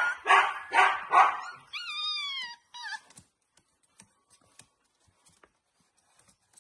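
Siberian husky puppy barking about four times in quick succession, then a high whine that falls in pitch and a short yip, after which it goes quiet apart from a few faint clicks.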